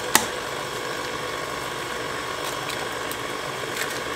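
KitchenAid tilt-head stand mixer running steadily, its beater creaming a thick batter of butter, brown sugar and eggs in the bowl. A single sharp click sounds just after the start.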